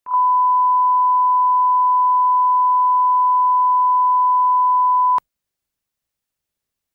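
Steady single-pitch test tone, the standard line-up tone at the head of a broadcast programme, held for about five seconds and then cutting off suddenly.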